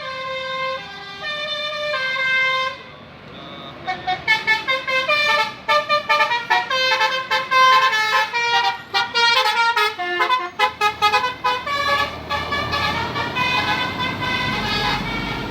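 Bus telolet horn, a Basuri multi-tone horn, playing a melody. A few held notes come first, then after a short break a fast run of short toots at about three or four a second, ending in longer held notes.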